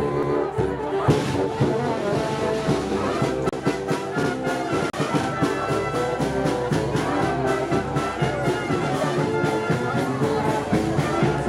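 Walking brass band playing, with trombones and trumpets carrying a sustained tune over repeated sharp beats.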